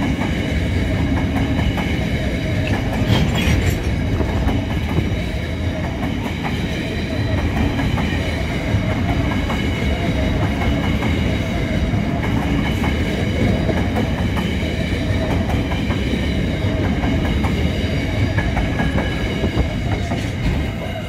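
Freight train of covered bulk wagons rolling past close by: a steady rumble with wheels clicking over the rail joints, and a thin, steady high ringing above it.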